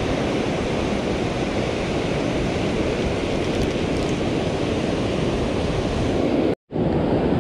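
Steady wash of ocean surf breaking and running up the sand, with wind on the microphone. The sound cuts out for a moment near the end.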